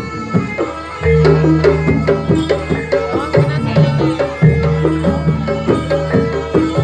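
Jaranan gamelan ensemble playing: hand-drum (kendang) strokes over a repeating struck metallophone melody, with deep held tones coming in about a second in and again about four and a half seconds in.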